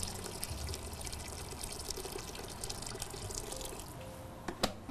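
Hot water poured from an electric kettle into a large cooking pot of meat and herbs: a steady, splashing stream. A short sharp knock near the end.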